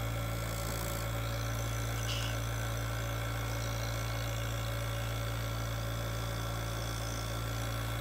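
A steady low hum with faint hiss, unchanging throughout.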